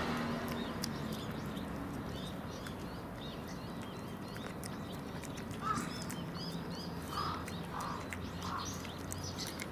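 Small birds chirping many times in quick, short notes, with three short lower calls about a second apart near the end.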